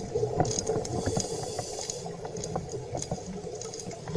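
Underwater ambience: a steady wash of water noise with many small scattered clicks and crackles.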